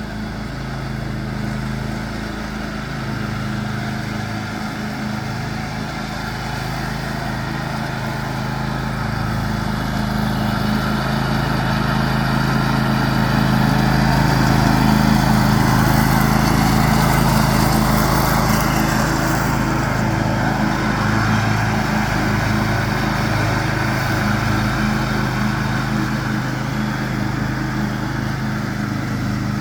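John Deere X500 riding lawn tractor running steadily while mowing, its engine and cutting deck growing louder toward the middle as it comes closer, then easing off slightly.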